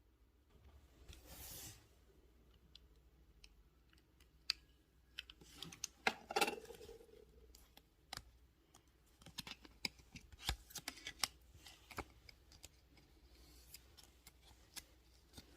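Faint, irregular clicks and taps, with a brief rustle about a second in and a louder rustling scrape around six seconds in.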